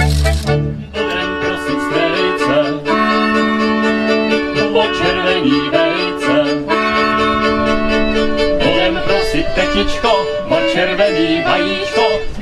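Folk music led by a fiddle playing a lively tune, over long held notes.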